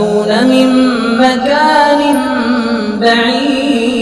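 A man's solo Quran recitation in melodic tajweed style, his voice drawn out on long, gliding, ornamented notes.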